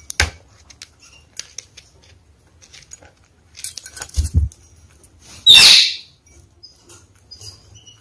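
Red-fronted kakariki parakeets moving about their cage: a sharp click near the start as a beak knocks the metal food bowl, scattered light taps, a flutter of wings with a few low thumps as one flies past about four seconds in, and a louder, half-second flurry of flapping about five and a half seconds in.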